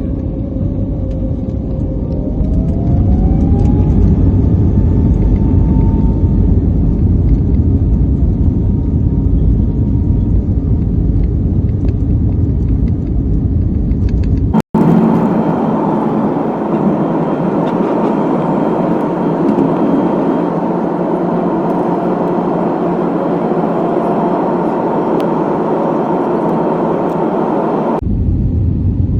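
Airliner cabin noise: the steady rumble of the jet engines and airflow heard from inside the plane, with a faint tone rising in pitch about two seconds in and then holding. The sound changes abruptly about halfway through and again near the end, becoming thinner and higher, then heavier again.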